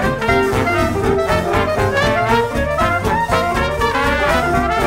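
Background music: a lively jazz tune with brass instruments and a steady beat.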